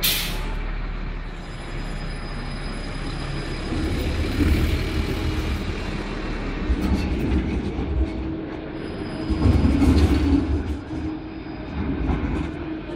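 City tram running past close by: a steady rumble of wheels on rails with a low motor hum. It swells about four seconds in and again near ten seconds.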